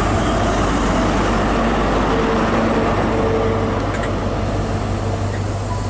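Class 43 HST diesel power car running at a standstill, a steady engine hum.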